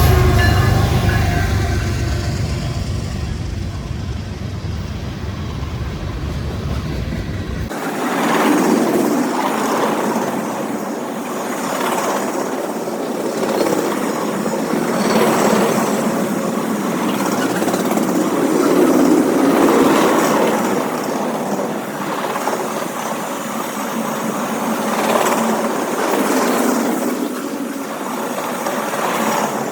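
Manifest freight train rolling past: a low rumble for the first several seconds, then an abrupt cut to the rolling noise of passing railcars, swelling and fading every few seconds.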